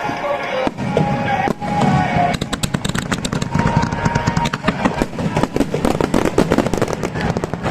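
Fireworks going off in a rapid, dense volley of bangs and crackles that thickens from about two seconds in, with music playing underneath.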